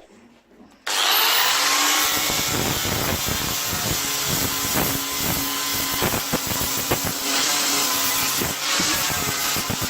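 A power tool starts about a second in, its pitch rising as it spins up, then runs steadily under load with a rough, crackly noise as it works the metal.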